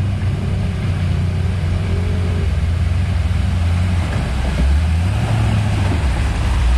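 Off-road vehicle engine running with a deep, steady note at the river crossing. About four and a half seconds in, the engine note shifts as it changes speed.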